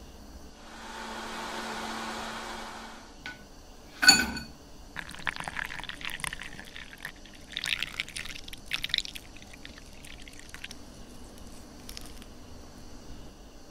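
A brief steady whirring noise, then a sharp glass clink about four seconds in, followed by juice being poured over ice cubes in a glass, with crackling and splashing that fade after a few seconds.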